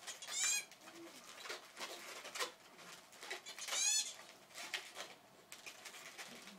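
Latex balloon squeaking as it is rubbed and twisted by hand, with two louder drawn-out squeals, about half a second in and about four seconds in, between many short squeaks.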